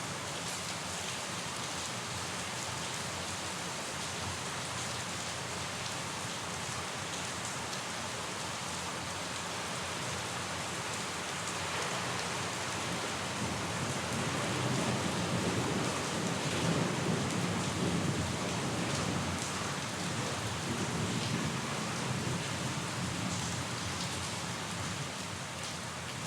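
Steady rain falling, an even hiss, with a long low rumble of thunder swelling up about halfway through and rolling away near the end.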